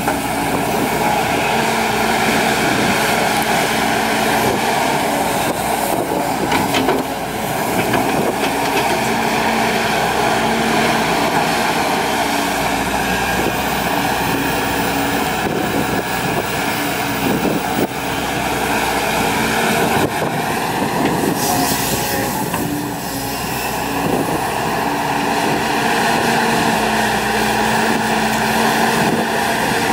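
Volvo EC210D crawler excavator working: its diesel engine runs steadily under load with a hum that comes and goes as the hydraulics work the boom and swing, and a few short knocks from the machine.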